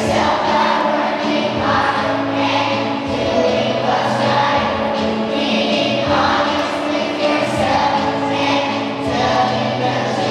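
Music with a choir singing, held notes changing every second or two.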